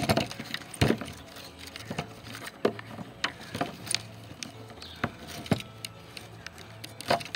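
Irregular sharp clicks and knocks, more than a dozen, from hand tools and a plastic cable entry fitting being handled and pressed onto a van roof.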